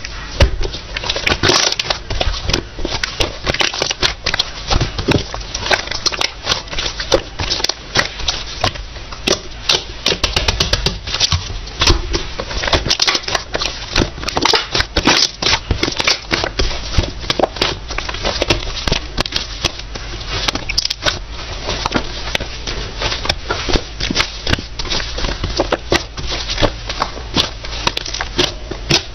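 Slime being pressed and kneaded by hand, giving a continuous run of dense, fast clicks and crackling pops as air pockets in it burst.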